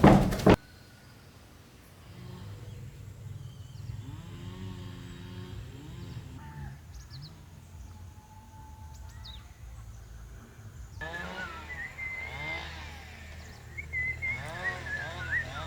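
Rural outdoor background: a brief clatter right at the start, then a low steady hum, with animal calls and many high, warbling chirps joining about eleven seconds in.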